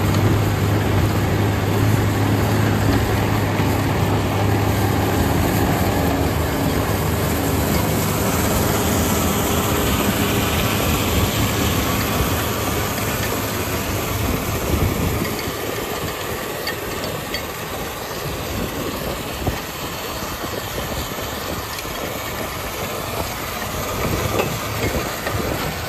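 Ten-wheeler manure spreader truck running in the field, its engine droning under a steady hissing, clattering noise from the rear beaters slinging manure. The low engine drone drops away about fifteen seconds in as the truck moves off, leaving the noisier spreading sound.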